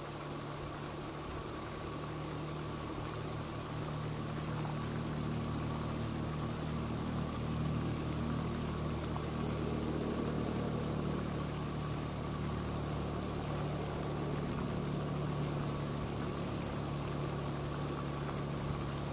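A steady low engine hum that grows a little louder over the first few seconds and then holds level.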